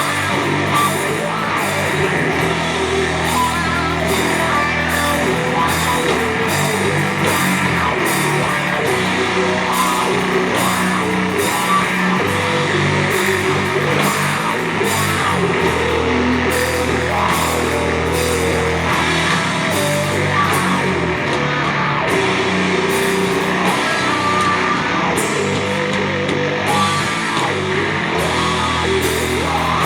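Doom metal band playing live: heavily distorted guitars and bass hold long low chords over drums and crashing cymbals, loud throughout.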